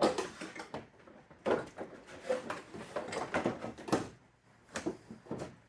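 Irregular knocks and clattering, several a second, thinning out over the last second or so.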